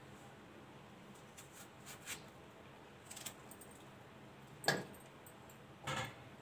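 Knife cutting the soft inner flesh off pieces of bottle gourd, with a few faint cutting clicks and two sharper clacks on a steel plate near the end.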